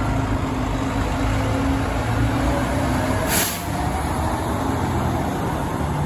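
Fire engine's diesel engine running steadily as the truck pulls out and drives away, with a short hiss of air brakes about three seconds in.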